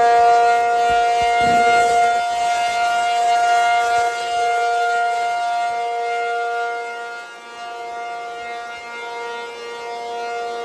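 ACA P-50 tornado siren sounding a steady two-note chord, held at one pitch rather than wailing up and down. It is loud for the first several seconds, fades at about seven seconds in, then swells back.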